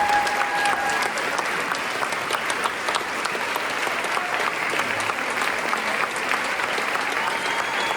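Audience applauding: dense, steady clapping from a large crowd, with a brief held high call over it near the start and again near the end.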